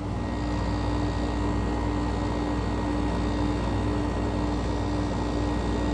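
2004 Friedrich Xstar window air conditioner running on high fan speed: a steady rush of air over a low hum with a steady tone, and no bearing noise.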